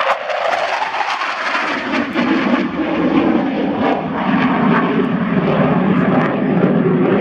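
Jet aircraft engine noise as it flies past: a steady, loud rush whose pitch drops lower about two seconds in.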